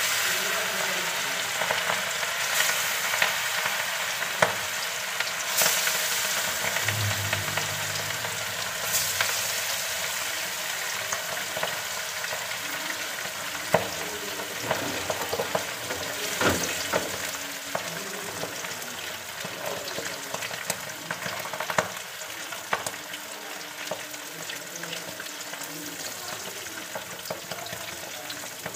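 Pieces of marinated fish frying in hot oil in a steel kadhai: a steady sizzle with scattered sharp pops and clicks, easing off slightly towards the end.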